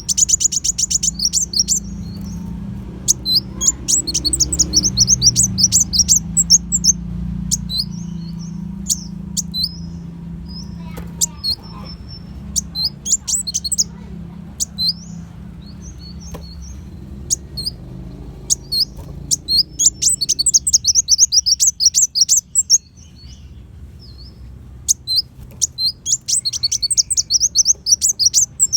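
Kolibri wulung sunbird singing in fast, high, chattering trills in bursts of one to three seconds, with sharp single chirps between them. The song is quieter in the middle and resumes with full trills about twenty seconds in and again near the end. A faint steady low hum runs underneath.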